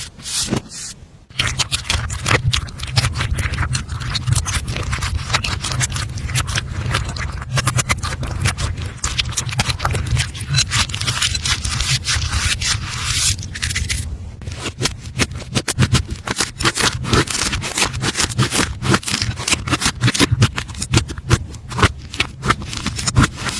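Slime being squished and poked by hand, giving dense, rapid wet clicks and crackles. There is a short lull about a second in.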